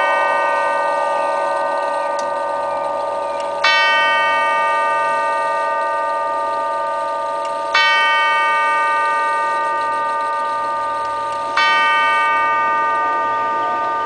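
Herschede Model 217 nine-tube hall clock striking the hour on one chime tube: three slow, single hammer strokes about four seconds apart, each ringing on and fading, over the lingering ring of a stroke just before.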